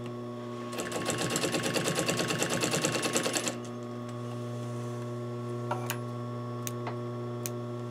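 Industrial sewing machine stitching in a rapid, even run for about three seconds, then stopping, over a steady electric hum. A few sharp clicks follow near the end, as scissors snip the threads.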